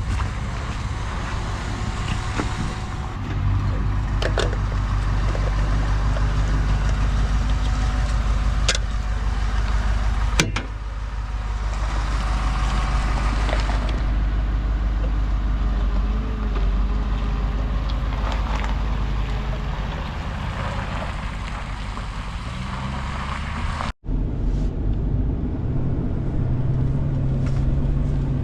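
Vehicle engine running steadily, with a few sharp clicks over it. The sound cuts out for an instant near the end, then the engine carries on.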